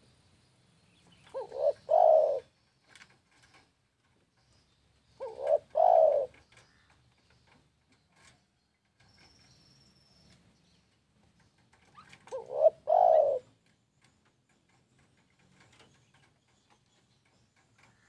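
Spotted dove (tekukur) cooing three times, each phrase a short note or two leading into a longer, louder coo, with a few seconds' pause between phrases.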